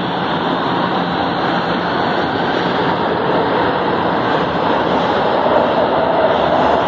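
São Paulo Metrô subway train running along the platform, a steady loud rush of wheels on rail and car noise that swells slightly toward the end.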